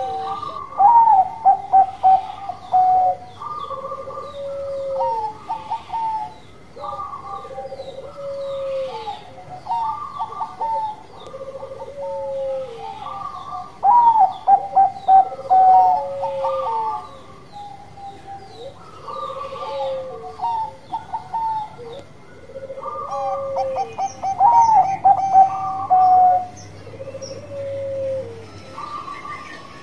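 Zebra dove (a Bangkok-type perkutut) singing its cooing 'bekur' song over and over: phrases of quick staccato notes falling into a drawn-out coo, with lower rolling coos between them. Three louder bouts come at the start, in the middle and near the end.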